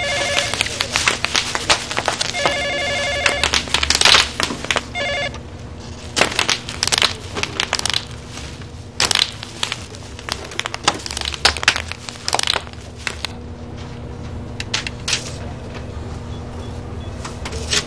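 A desk telephone ringing in repeated rings, then a long stretch of loud crunching, crumpling and crashing as things on an office desk are crushed and smashed. Near the end, scattered light clicks of typing on a computer keyboard.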